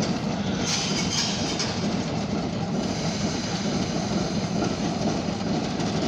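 Oil Creek & Titusville diesel switcher locomotive running steadily at low speed, with a brief hiss about a second in.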